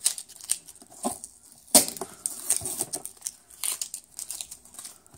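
Corrugated cardboard shipping box and its packing tape being handled: irregular crinkling, tearing and scraping, with a few sharp clicks, the loudest just under two seconds in.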